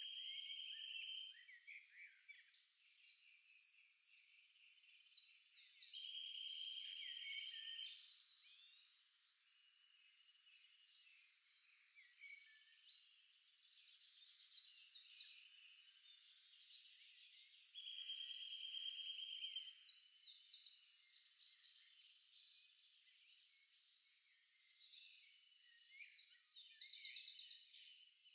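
Songbirds singing: high chirps, quick runs of repeated notes and trills, with the phrases coming back every few seconds.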